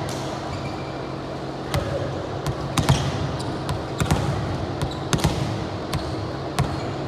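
Ball impacts thudding on a hard gym court at irregular intervals, about eight in all, over a steady hum of the hall.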